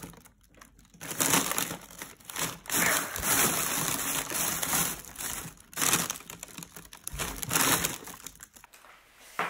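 Plastic packaging crinkling and rustling as a hand moves and presses the bags and packs in a polystyrene shipping box. It starts about a second in and goes on with short pauses.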